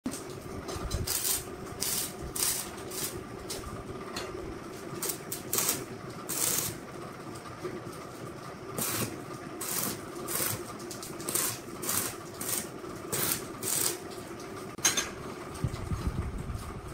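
Stick (arc) welding tacks on galvanized square steel tubing: a string of short crackling bursts of the arc, each lasting a fraction of a second, over a steady hum. A sharp click comes near the end.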